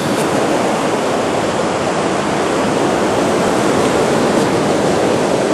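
Ocean surf breaking on a sandy beach: a steady, rushing wash of waves with no single crash standing out.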